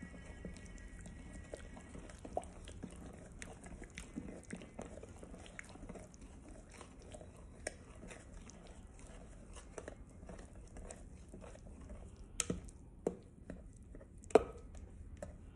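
Steel spoon stirring thick gram-flour batter in a glass bowl: soft wet squelching with scattered faint clicks, and a few sharper taps of the spoon against the glass near the end.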